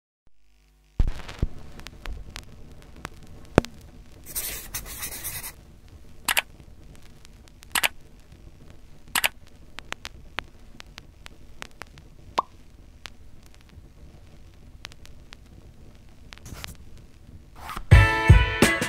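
Irregular sharp light clicks and taps over a faint steady background, with a brief rustling swish about four seconds in. Guitar music starts near the end.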